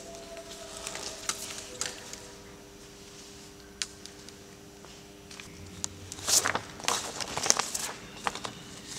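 Loose sheets of paper rustling as they are picked up and handled, scattered soft rustles and ticks that grow busier and louder about two-thirds of the way in, over a faint steady hum.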